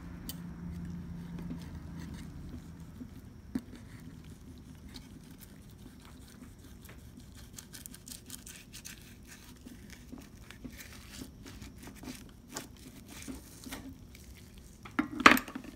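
Fillet knife slicing a bluegill fillet off its skin on a plastic cutting board, the fish held down with a fork: faint, irregular scraping strokes and small clicks. A louder knock near the end.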